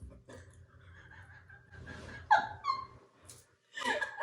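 A person breathing hard and wheezing, with a short pitched, falling gasp about two seconds in and a sharp hissing breath a little later. It is a reaction to the burn of very spicy food.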